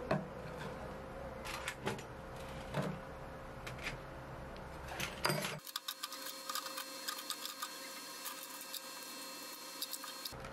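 A clear plastic container knocked on a wooden workbench a few times. About halfway through, small steel bolts, nuts and washers clatter into it with many quick small clinks and rattles.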